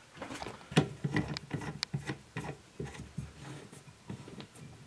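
Scattered light clicks, taps and rubbing as a plumbing union fitting on copper pipe is handled and hand-tightened, with the strongest knock just under a second in.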